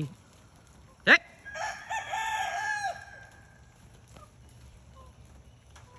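A rooster crowing once, a broken crow about a second and a half long, just after a short, sharp rising cry.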